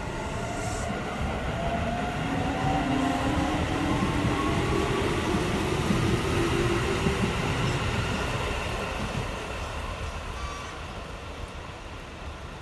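Keio 8000-series electric train accelerating away, its GTO-thyristor VVVF inverter whining in several tones that climb slowly in pitch over the rumble of wheels on rail. The sound is loudest in the middle and fades as the train leaves.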